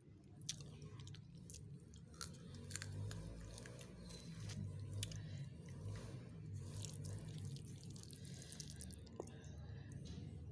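Someone eating pea rice by hand from a steel plate: scattered soft clicks and chewing sounds over a low steady hum.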